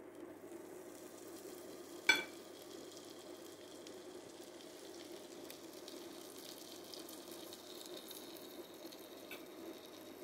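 Flour-dredged beef pieces sizzling as they fry in melting butter and oil in a pot, a steady, fairly faint sizzle. A single sharp clink comes about two seconds in.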